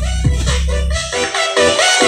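Electronic DJ remix played loud through a large sound system with 15-inch subwoofers: deep, downward-sweeping bass kicks repeat steadily, then drop out about a second in, leaving a brassy lead melody before the bass comes back near the end.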